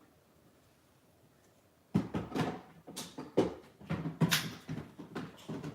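About two seconds of near quiet, then a run of irregular knocks and scrapes as a packed part of the robot vacuum is tugged and keeps catching on something, most likely its shipping protection.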